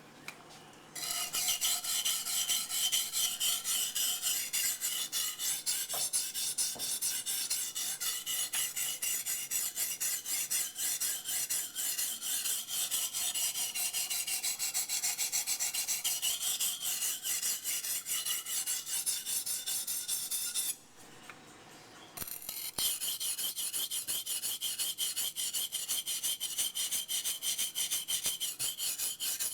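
Steel blade of a Becker BK9 large knife stroked back and forth over a 180-grit sharpening stone in quick, rhythmic scraping passes, thinning and shaping the bevel. The strokes start about a second in, stop briefly about two-thirds of the way through, and then resume.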